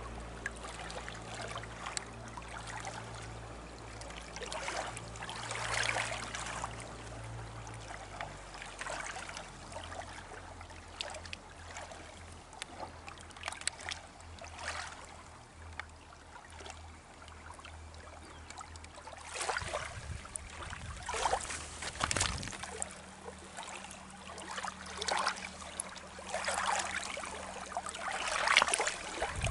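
Small waves lapping and trickling against a rocky lake shoreline, in irregular swells every second or two, with a faint low steady hum underneath.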